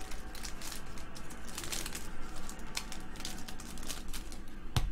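Foil wrapper of a trading-card pack crinkling and tearing as it is ripped open by hand, with a sharp click near the end.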